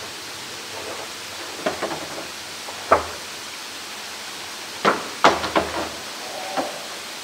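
Blue plastic barrel knocking and bumping against concrete as a polar bear shoves and noses it: irregular knocks in small clusters, the loudest about three and five seconds in, over a steady rushing noise.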